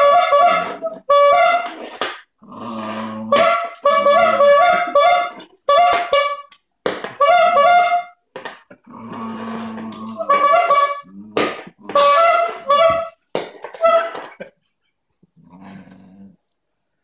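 Bulb squeeze horn honking again and again in short blasts, each about half a second to a second long, as a dog presses its rubber bulb. Between honks come lower, rougher sounds that fit the dog growling. The honking stops a few seconds before the end.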